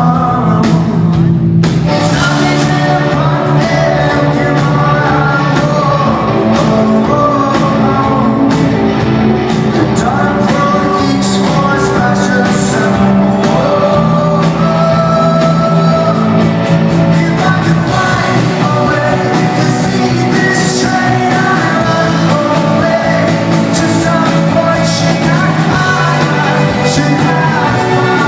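Live rock band performing a song in a concert hall, with a lead singer's voice over guitars, bass and drums at a loud, steady level.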